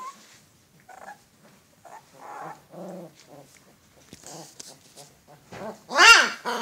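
Alaskan malamute puppies play-fighting, giving short growls and whines, then one loud high yelp about six seconds in.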